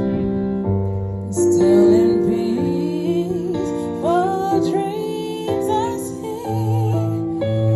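Live female vocalist singing into a handheld microphone over sustained accompaniment chords and a bass line, her voice sliding between notes in ornamented phrases.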